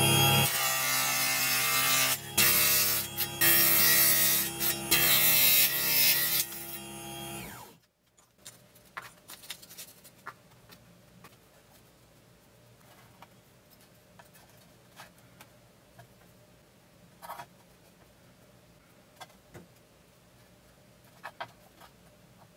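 Small table saw cutting a thin strip of hardwood: a loud, rasping cut over the motor's steady hum, which ends about eight seconds in. After that only faint scattered clicks and taps from handling the small wooden piece.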